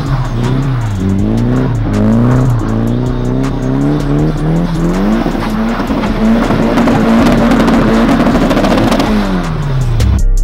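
Nissan 240SX's turbocharged SR20DET four-cylinder engine revving up and down over and over while the car drifts, then held at high revs for a few seconds with the rear tyres spinning in the snow, and the revs dropping off near the end.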